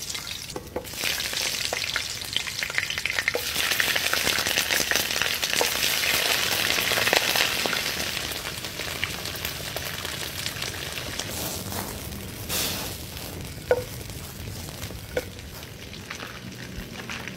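Chicken pieces sizzling in a pan over a wood fire: a dense crackling hiss that is loudest in the first half and eases off later, with a few sharp pops in the second half.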